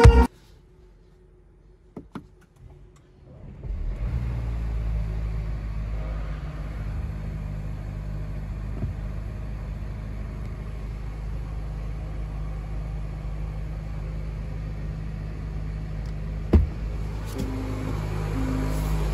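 Range Rover Velar's engine starting about three and a half seconds in, after a couple of faint clicks, then idling with a steady low hum. A sharp click comes near the end, and the engine grows slightly louder in the last seconds.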